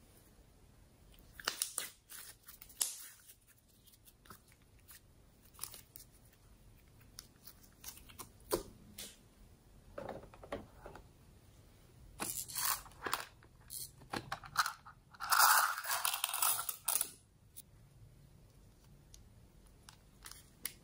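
Slime and craft add-ins being handled in a glass baking dish: intermittent soft crackles, clicks and taps. There is a louder rustling, crackling stretch about 15 to 17 seconds in, as more decorations such as buttons and glitter go into the dish.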